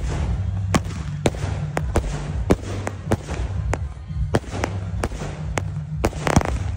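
A 49-shot firework cake firing, its shells bursting overhead in a rapid run of sharp bangs at about two a second, with background music underneath.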